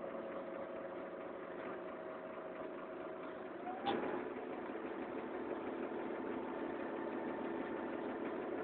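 Karosa Citybus 18M articulated bus running along, heard from inside the passenger cabin: a steady drivetrain whine over road noise. About four seconds in there is a sharp knock, and the whine changes pitch.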